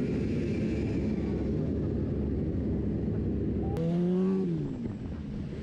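Motorcycles running with a steady low rumble. A little before four seconds in there is a sharp click, then a louder pitched engine note that holds briefly and falls away.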